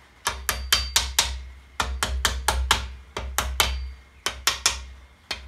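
Hammer tapping the main bearing caps down into place on a Land Rover Puma 2.4 TDCi engine block, seating caps that are tight on their bolts. Quick sharp taps, about four a second, in runs of five or six with short pauses between.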